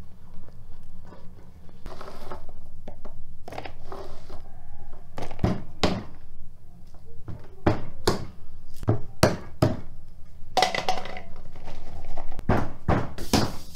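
Knives cutting chestnuts on a wooden cutting board: a run of sharp, irregular knocks and thunks as the blades go through the shells and strike the board.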